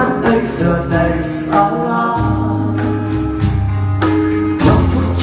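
Acoustic ballad music: a singing voice over acoustic guitar accompaniment.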